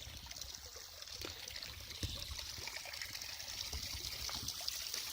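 Small forest spring trickling steadily, growing louder toward the end.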